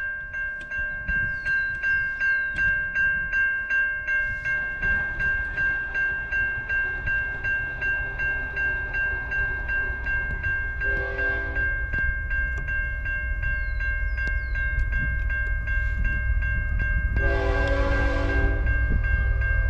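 Railway crossing bell ringing steadily, about two strokes a second. An approaching CN freight locomotive's horn sounds a short blast about halfway through and a longer blast near the end, over a low rumble that grows louder.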